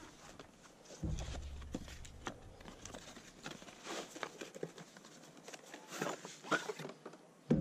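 Cardboard box rustling and scraping as a fly-rod case is slid out of it, with scattered irregular taps and knocks, the busiest stretch around the middle.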